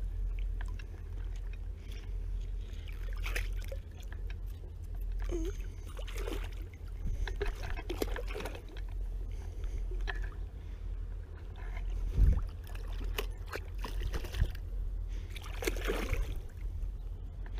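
Hooked rainbow trout thrashing at the surface, water splashing in short bursts a few times, with the biggest splash near the end, over a steady low rumble. A dull thump comes about two-thirds of the way through.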